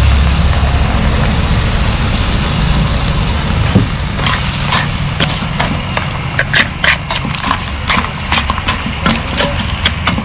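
Metal ladle stirring a wok of boiled crab pieces and corn: irregular clinks and scrapes against the pan and the shells, starting about four seconds in, over a steady low rumble.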